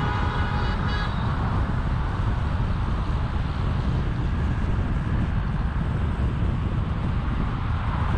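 Steady road and wind rumble from a car travelling at about 78 km/h on an expressway. A vehicle horn is sounding as it begins and stops about a second in.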